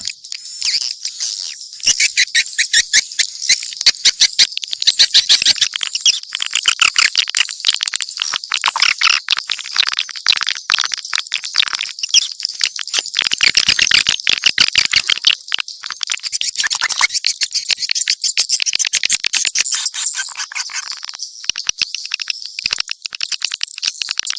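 Dense chorus of swiftlets twittering: rapid high chirps mixed with fast clicking, unbroken throughout.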